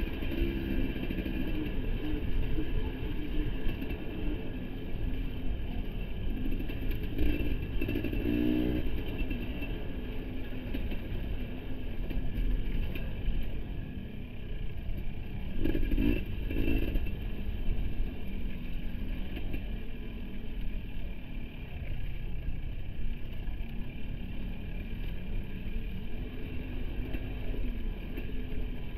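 Husqvarna TE250i single-cylinder two-stroke dirt bike engine running under throttle on a trail ride. The revs climb briefly about seven seconds in and again about sixteen seconds in, over a steady low rumble.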